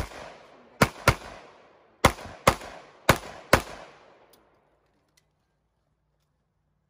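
Rapid pistol fire from a CZ Shadow 2 9mm: a single shot, then three quick pairs of shots about a third of a second apart, each with a short echoing tail. The sound cuts out to dead silence about four and a half seconds in.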